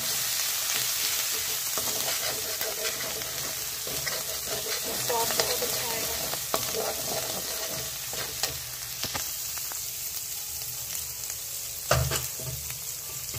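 Green chilli, ginger and garlic paste sizzling in hot oil in a metal pan while a perforated steel spoon stirs and scrapes it, with occasional clinks of the spoon against the pan and the loudest knock near the end.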